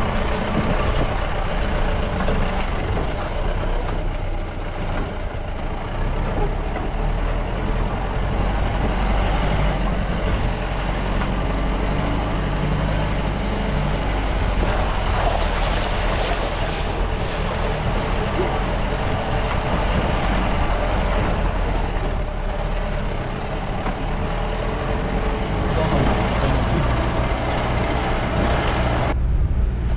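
Jeep engine running steadily under load with tyre and road noise on an off-road track, heard from inside the cab as a low, even rumble.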